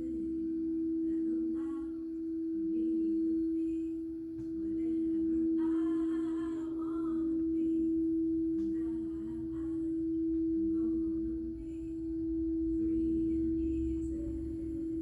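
Singing bowl ringing in a steady, sustained tone that swells and fades in slow waves about every two and a half seconds, with fainter wavering higher sounds above it.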